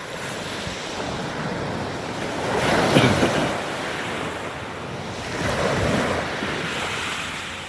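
Sea waves breaking on the beach, two surges about three seconds apart, with wind on the microphone.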